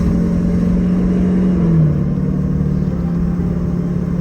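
LLY Duramax 6.6 L turbo-diesel V8 pulling hard under acceleration, its engine note dropping in pitch about two seconds in.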